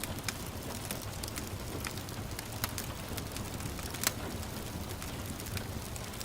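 Wood fire crackling, with frequent sharp pops and a louder snap about four seconds in, over a steady hiss of gentle rain.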